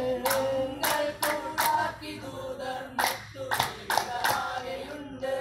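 Vattappattu: a group of men singing a Mappila wedding song together. Sharp hand claps come in two quick runs of about four claps each, one near the start and one about three seconds in.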